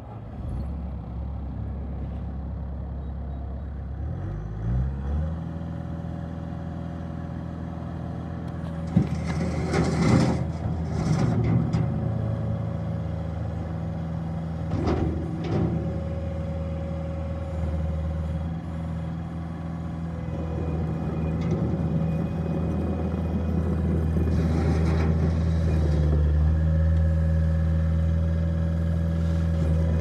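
Bobcat T300 compact track loader's diesel engine running. It is throttled up about four or five seconds in, then holds a steady higher speed while the loader works its bucket and drives on its tracks. A few brief louder bursts of noise come partway through.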